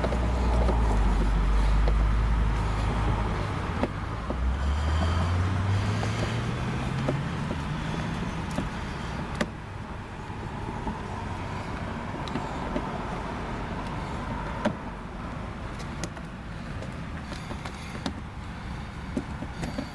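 A motor vehicle engine running with a low hum, then rising steadily in pitch for several seconds as it speeds up. A few light clicks of hand tools follow.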